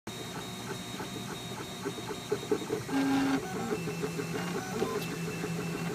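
CTC 3D printer running a print: its stepper motors whine in short steady tones that jump from pitch to pitch as the print head and bed move.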